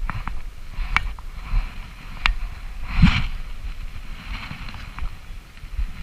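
Handling noise of fly casting: scattered sharp clicks and rustling from the rod, reel and line, with one louder whoosh about three seconds in.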